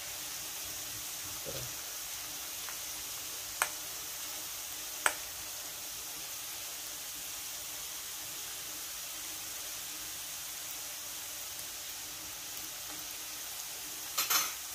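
Hot oil sizzling steadily in a wok as minced pork and cheese pieces deep-fry. Two sharp ticks come a few seconds in, and a short clatter near the end.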